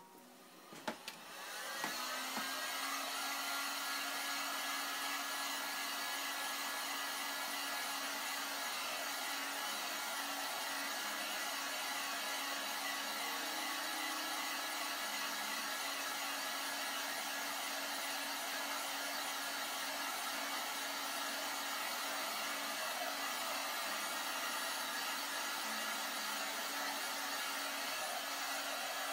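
A hair dryer is clicked on about a second in, then runs steadily, drying the wet watercolour paint.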